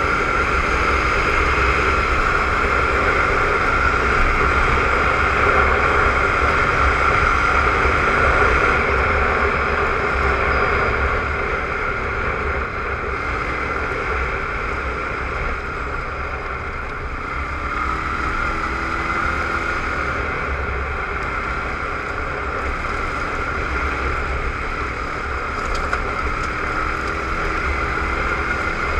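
Suzuki ATV engine running steadily while riding along a dirt trail, easing off slightly about ten seconds in.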